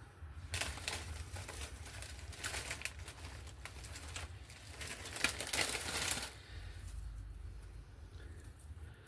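Dry craft moss being pulled out and handled: crackly rustling in uneven bursts, loudest near the middle, stopping about six seconds in.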